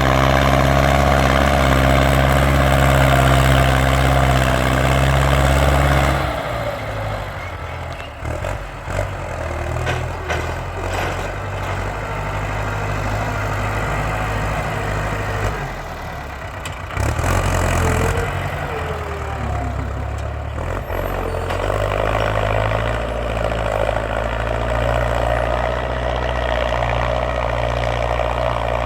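Ford farm tractor's engine running loud and steady at high revs, then easing off about six seconds in to a lower, rougher, uneven note. It picks back up to a steady run over the last several seconds.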